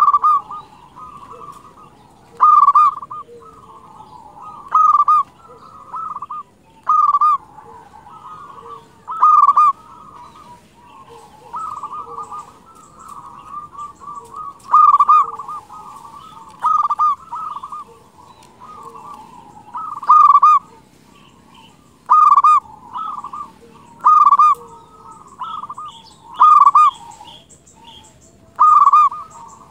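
Zebra dove (perkutut) singing vigorously. It repeats a loud cooing phrase about every two seconds, with softer cooing notes between the phrases.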